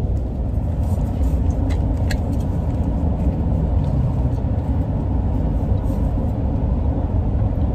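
Steady low rumble of a vehicle's engine and road noise, heard from inside the cabin, with a couple of light clicks about two seconds in.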